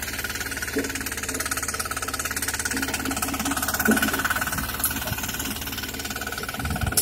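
Small engine of a walk-behind power tiller running steadily with a fast, even beat. A couple of low thumps come near the end.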